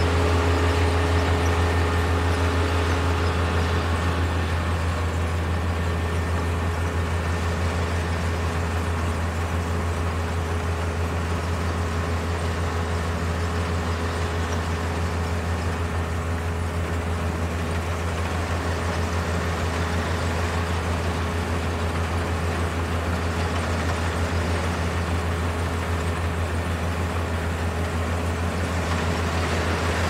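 Kubota DR472 combine harvester's 72-horsepower diesel engine and machinery running steadily: a constant low hum with a few steady higher tones above it.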